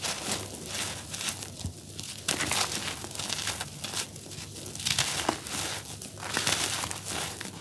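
A dry, grainy charcoal cake being crumbled and squeezed by hand, a gritty crackling crunch that comes in irregular surges as the pieces break and the powder sifts down onto the loose pile.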